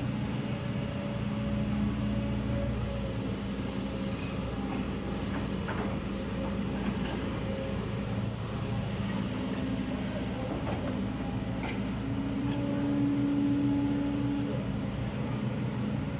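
Backhoe loader's diesel engine running under load while it digs. Its pitch shifts up and down as the load changes, and it revs up for a couple of seconds near the end, with a few faint knocks from the working machine.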